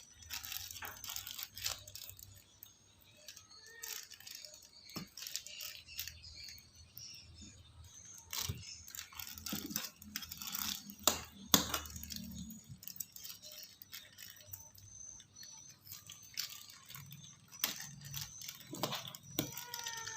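Scattered clinks, taps and rustles of kitchen items being handled, irregular and of uneven loudness, with a few sharper knocks about halfway through.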